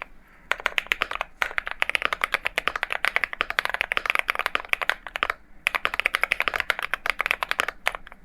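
Fast typing on an Akko MonsGeek M1 mechanical keyboard fitted with MMD Princess switches: a rapid, continuous run of key clacks. There are brief pauses just after the start, about a second in and around five seconds in, and the typing stops just before the end.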